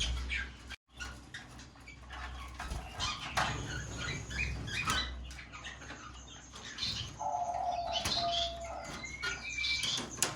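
Small cage birds fluttering their wings and chirping, with scattered clicks and scuffles and a short steady call about two-thirds of the way through.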